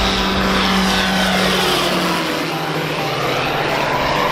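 Single-engine propeller airplane making a low pass, its engine and propeller drone falling in pitch as it goes by.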